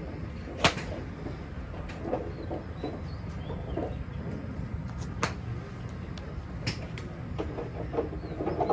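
A 7-iron striking a golf ball: one sharp, loud crack about half a second in, with fainter cracks of other balls being struck later on. Short clucking calls come and go over a steady low background rumble.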